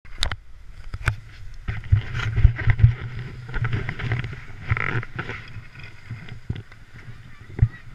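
Wind buffeting and irregular knocks on a camera microphone, with uneven scraping noise.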